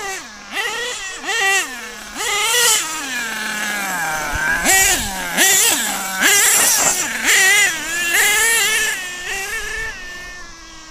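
Clockwork-modified Picco .28 P3 nitro two-stroke engine in an HPI Savage X RC monster truck, revving in a quick series of short throttle blips and then longer pulls, each rising sharply in pitch to a high whine and dropping back as the throttle closes. About three seconds in the pitch falls slowly as the truck coasts.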